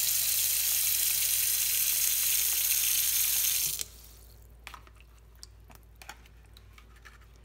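Kitchen tap running in a steady stream onto slices of white bread in a plastic tub, then shut off abruptly a little before four seconds in. After that, faint scattered clicks and squishes as a hand presses the soaked bread down in the tub.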